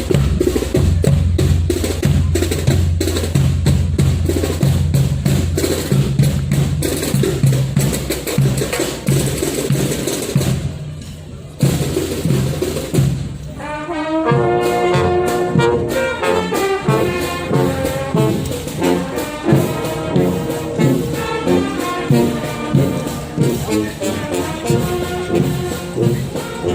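Music: steady, dense drumming for the first half, then after a short break a melodic tune with pitched instruments over a beat.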